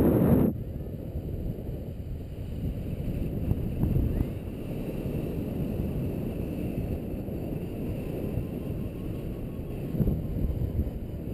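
Wind buffeting the microphone of a paraglider pilot's camera in flight: a steady low rumble, with a strong gust right at the start and smaller surges about four seconds in and near the end.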